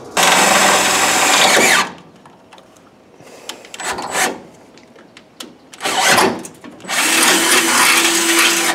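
Cordless drill with a 17/64 in bit enlarging pilot holes in sheet metal, run in several bursts: a loud run of about two seconds at the start, shorter bursts in the middle, and another loud run with a steady motor whine near the end.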